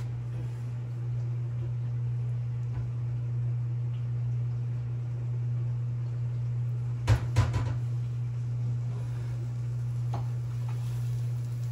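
A steady low hum, with a quick cluster of three or four knocks about seven seconds in and one fainter knock near ten seconds.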